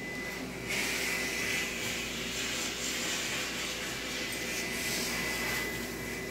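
Steady rushing machine noise, like a motor-driven blower or vacuum, that comes up suddenly about a second in and eases off near the end, over a faint steady high-pitched tone.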